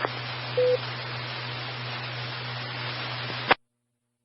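Amateur two-way radio channel held open between calls: steady static hiss with a low hum, a short beep about half a second in, then a click and the signal cuts off suddenly as the squelch closes about three and a half seconds in.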